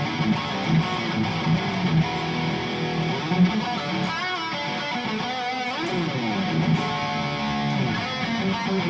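Harley Benton SC-500 electric guitar played through the Overloud TH3 amp simulator, a steady run of picked notes and strummed chords with a few bent notes around the middle.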